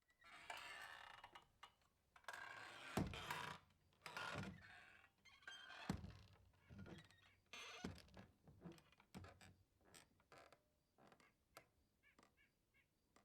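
Saloon-style swinging doors creaking on their hinges and knocking as they swing back and forth. The swings get shorter and softer, with quicker, fainter knocks, until the doors settle.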